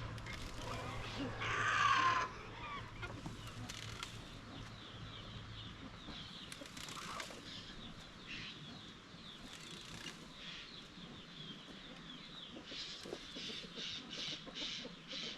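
Chickens clucking and calling, with one loud call that falls in pitch about two seconds in and a quick run of short calls near the end.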